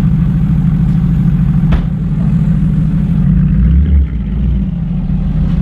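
Mercedes-Benz SLS AMG's 6.2-litre V8 idling with a deep, steady burble, swelling briefly past the middle as the car moves off. A single sharp knock comes about two seconds in.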